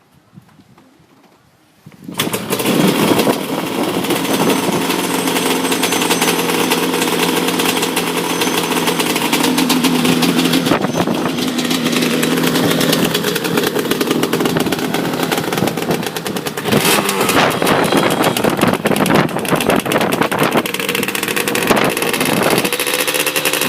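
1989 Yamaha Banshee's 350 cc twin-cylinder two-stroke engine, breathing through an FMF aftermarket exhaust, starting up about two seconds in and then running, revved several times before settling into a steadier idle near the end.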